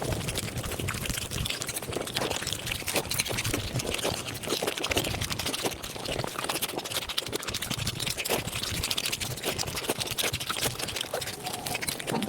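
Mukbang eating sounds of puri (fried puffed bread), with chewing and mouth sounds sped up five times into a dense, rapid chatter of clicks.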